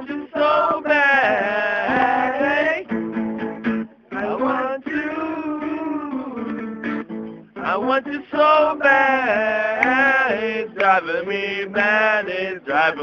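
Acoustic guitar being played with a voice singing over it. The music dips briefly about four seconds in and again past the middle.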